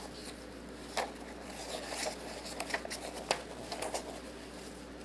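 Quiet rustling of paper with a sharp tap about a second in and several light clicks after it: a picture book's pages being handled and turned.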